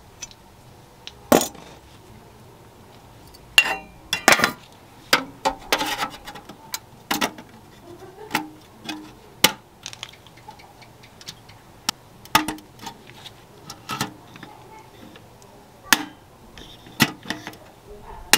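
Small metal parts being worked and handled by hand: irregular sharp taps, clicks and clinks, roughly one a second, some with a brief metallic ring.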